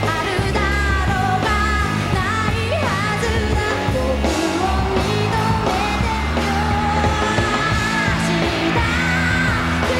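Live rock band playing, with a woman singing the lead vocal into a microphone over the band.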